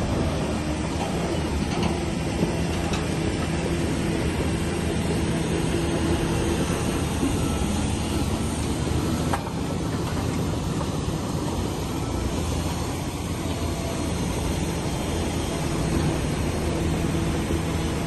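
Diesel engine of heavy earth-moving machinery running at a steady pitch, with a short click about nine seconds in.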